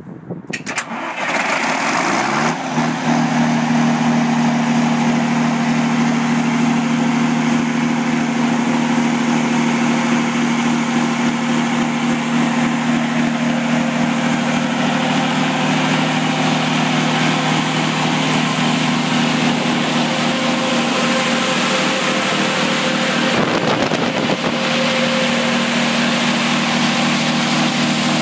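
The six-cylinder Volvo diesel engine of a 135 kVA three-phase generator set starting from its control panel: it cranks and catches within about two seconds, rises to speed, and then runs steadily at constant governed speed.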